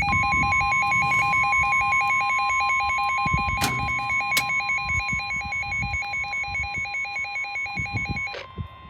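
NOAA Weather Radio warning alarm: a steady, piercing tone near 1 kHz sounding together with a fast-warbling electronic alert beep from the receiver, with a couple of sharp clicks partway through. Both tones cut off near the end. This alarm announces that a new warning is about to be read.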